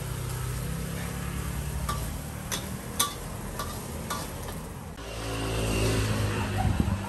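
Rice sizzling in a wok while a metal spatula scrapes and clinks against the pan several times. In the second half a passing road vehicle comes in, growing louder and then fading.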